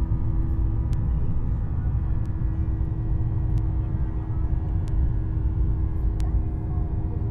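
Airliner cabin noise during the climb after takeoff: a steady low rumble from the engines and airflow, with a steady hum. Faint ticks recur about every second and a quarter.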